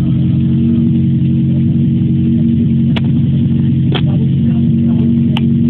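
Portable firefighting pump's engine running steadily at a constant speed. A few short sharp clicks are heard about three, four and five and a half seconds in.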